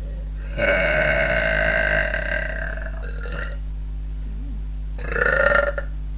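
Two deliberate burps by a girl: a long one lasting about two seconds, then a shorter one near the end.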